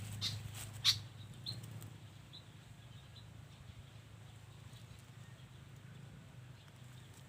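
A few sharp clicks in the first second, then faint short bird chirps now and then over a low steady hum.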